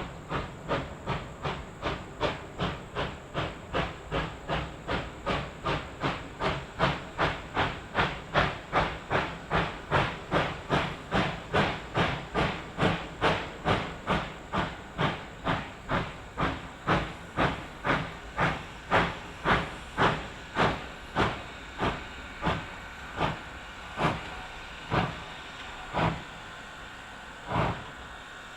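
Reading & Northern 425, a 4-6-2 steam locomotive, chuffing: its exhaust beats come in a steady rhythm of about two to three a second, grow louder, then slow and thin out to a few separate beats near the end before stopping.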